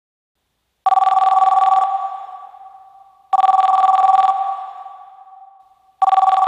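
Telephone bell ringing, three rings starting about a second in and spaced about two and a half seconds apart. Each ring is a rapid, rattling double tone lasting about a second and then fading away.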